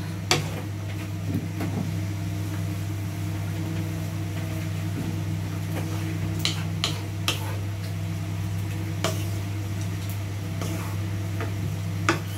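A steady low mechanical hum from a running kitchen appliance, with a few scattered light clicks and taps.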